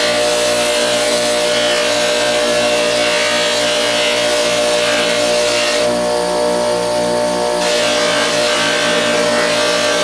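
Bench buffer motor running steadily with a constant hum, its cloth buffing wheel hissing against the blade of a Schrade Old Timer folding knife being polished. A little past the middle the hiss drops away for about two seconds while the blade is off the wheel, then comes back.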